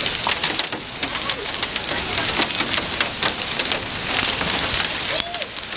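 Hail and heavy rain striking a car's hood and windshield: a dense, continuous stream of sharp hits over the steady hiss of rain.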